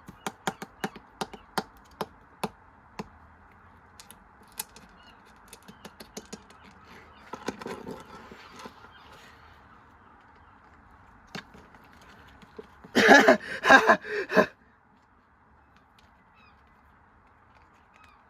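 Washing machine running with stones loose in it: sharp knocks and clatters come thick in the first few seconds, then more scattered, over a steady hum. About 13 seconds in comes a loud honking burst, after which the hum cuts out.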